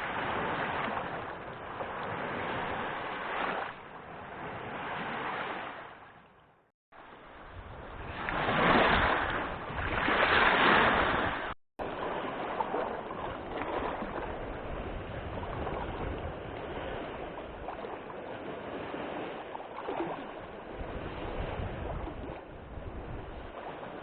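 Wind gusting over lake water, with waves splashing and wind buffeting the microphone. The gusts grow strongest about a third of the way in, and the sound cuts off abruptly twice.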